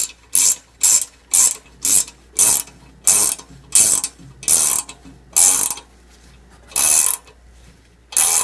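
Ratcheting wrench clicking in repeated short bursts, about two a second, as it turns an M8x1.25 thread chaser into a rusty stud hole in an exhaust flange, cleaning up the threads. The bursts grow longer and further apart, with a pause about six seconds in.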